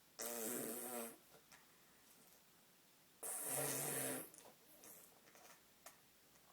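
A dog making two drawn-out, breathy vocal noises, each about a second long, the second about three seconds after the first.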